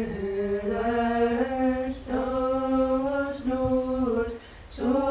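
Slow sung chant in unison: long held notes that step up and down in pitch, with short breaks about two seconds in and near the end.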